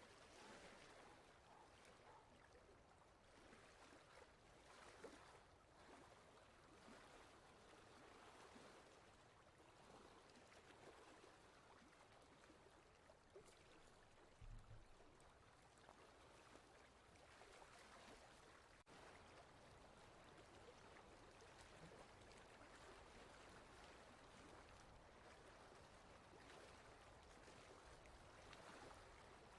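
Near silence: a faint, steady hiss of background noise, with one soft low thump about halfway through.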